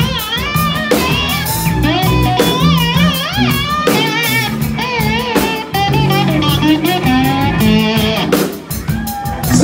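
A live rock band playing, led by an electric guitar solo through a Marshall amp: a lead line full of string bends and wide vibrato, over bass guitar and a drum kit keeping a steady beat.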